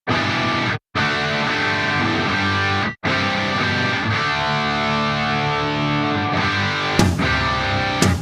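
Background music led by guitar, cutting out abruptly for a moment twice, about a second in and about three seconds in, with a few sharp hits near the end.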